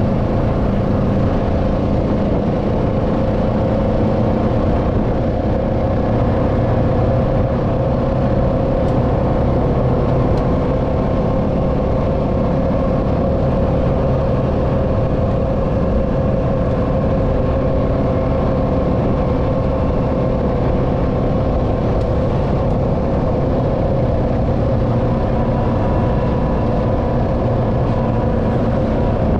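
ATV running at a steady road speed: a constant engine drone with a held, even tone, with no revving or gear changes.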